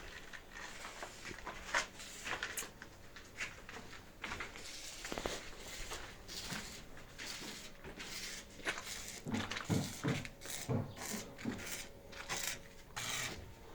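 Scattered knocks, clicks and rustling of objects being handled and set down, irregular throughout.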